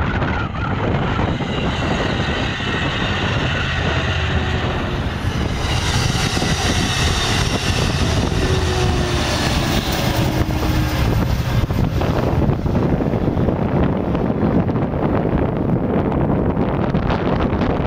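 Amtrak Capitol Corridor bi-level passenger train passing on the levee track. Its wheel-on-rail noise swells from about five seconds in and fades after about twelve seconds as the train moves off. Gusty wind buffets the microphone with a heavy rumble throughout.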